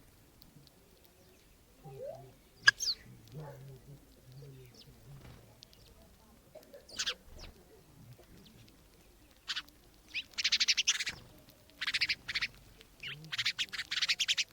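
Guinea fowl giving harsh, rapid rattling calls in repeated bursts over the last five seconds, with a few short, high chirps from small birds earlier on.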